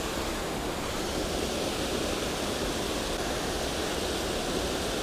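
Steady rush of flowing creek water, an even hiss with no distinct events.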